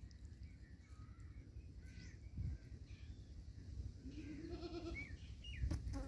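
Faint, high peeps of a chicken chick calling from inside its pipped egg, with a longer, lower animal call about four seconds in and a few dull thumps.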